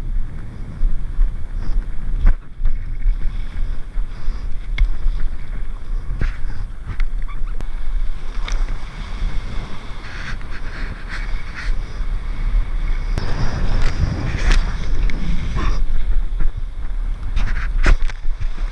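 Wind buffeting the microphone of an action camera on a kite bar, with water rushing and splashing as a kiteboard rides through choppy water. Sharp splashes of spray come thick from about halfway on.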